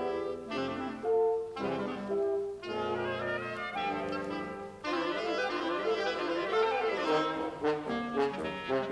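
Woodwind quintet of flute, oboe, clarinet, horn and bassoon playing a brisk passage of a hunting-piece movement, turning to short detached notes near the end.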